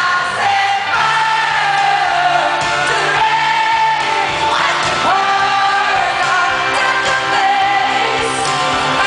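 Female pop singer's live vocal holding long notes, with a slide up about halfway through, over a live band, recorded from the audience at a concert.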